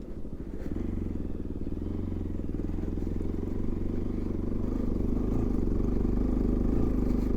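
Bajaj Pulsar NS200 single-cylinder motorcycle engine running under steady throttle on a rough dirt track, getting gradually louder.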